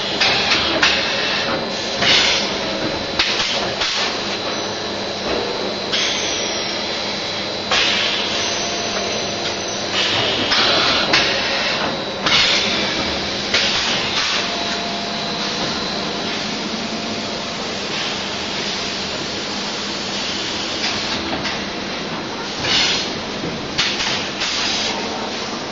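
Six-head extrusion blow molding machine running: a steady mechanical hum with a thin high whine in the first half, broken every few seconds by short bursts of compressed-air hiss and sharp knocks as the molds cycle.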